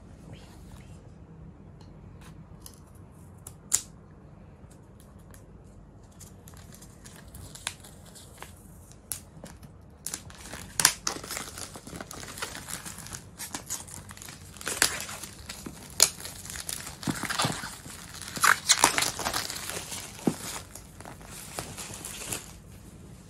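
Clear plastic shrink wrap being torn and peeled off a cardboard drone box, crinkling and crackling from about ten seconds in for roughly twelve seconds. Before that there is only light handling, with one sharp click just before four seconds in.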